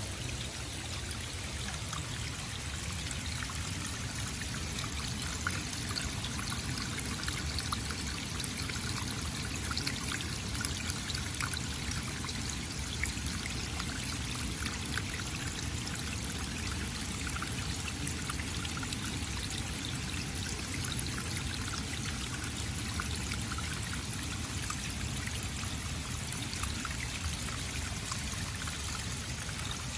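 Running water flowing steadily, with a constant patter of small splashes.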